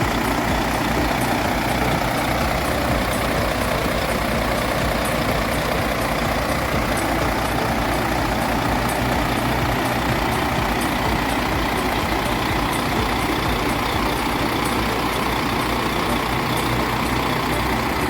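Low loader truck's diesel engine running steadily at raised speed, driving the hydraulics that lower its rear loading ramps.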